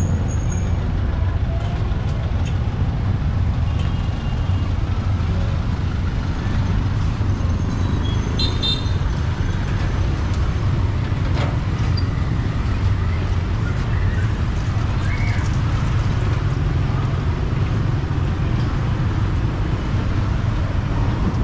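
Steady rumble of street traffic, cars and motorbikes going by, with a short high beep like a vehicle horn about eight and a half seconds in.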